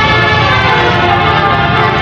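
Tour bus's basuri telolet horn, a multi-trumpet melody air horn, sounding a loud chord of several steady notes.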